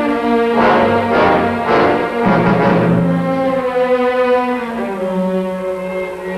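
Dramatic orchestral film score of strings and brass, with several sharp accented hits in the first three seconds and then sustained held notes.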